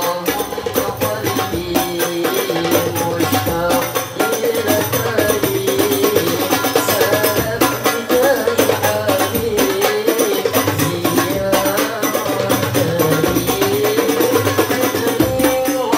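Boys' voices singing an Islamic sholawat in qasidah style through microphones, with rebana frame drums beating a steady rhythm.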